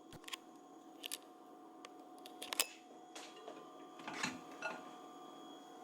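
Faint scattered clicks and light knocks, about half a dozen, over a low steady hum.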